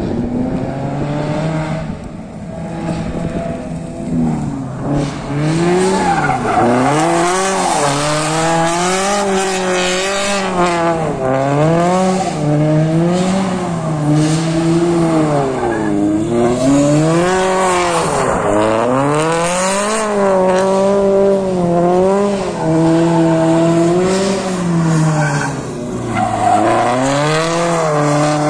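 Toyota 86 drift car's engine revving up and down in repeated waves, rising and falling about every two seconds, with its rear tyres squealing as the car slides sideways.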